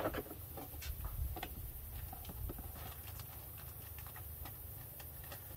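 Irregular clicks and crackles of a plastic PET-bottle bee bait and its dry-leaf and plastic wrapping being handled and pulled apart.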